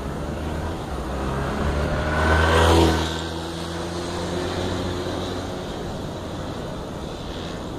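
Honda Rebel CMX250 motorcycle passing by: its engine note builds to a peak about three seconds in, drops in pitch as it goes past, then fades as it rides away, with wind noise on the microphone throughout.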